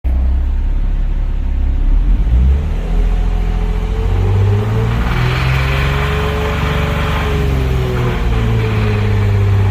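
Car engine running loudly, its pitch rising about four and a half seconds in and falling back by about eight seconds.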